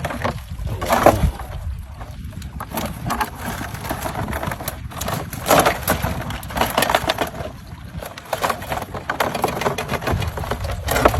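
Dense, irregular clattering and crackling of hard objects knocking and scraping together, louder about a second in and again around the middle.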